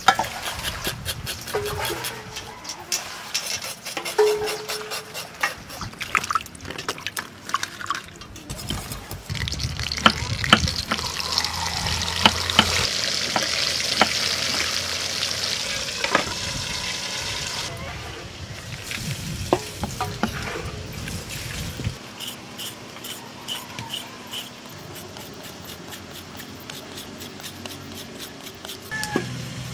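Water sloshing in a metal basin as a large whole fish is washed by hand. From about ten seconds in, the fish fries whole in hot oil with a loud, steady sizzle lasting several seconds. Near the end comes the quieter, rhythmic scrape of carrot on a hand grater.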